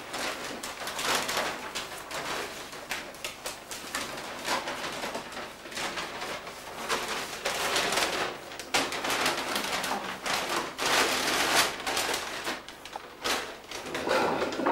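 A large tablecloth rustling in repeated bursts as it is gathered and folded off a dining table.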